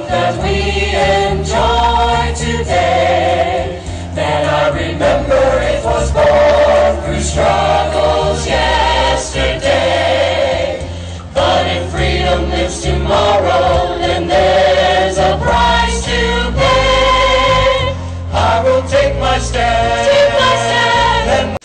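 Church group choir singing a patriotic song over a steady low accompaniment.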